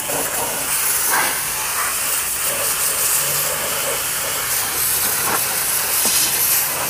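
Pressure washer's spray lance jetting water onto a car's tyre, hubcap and wheel arch: a steady, even hiss of high-pressure spray.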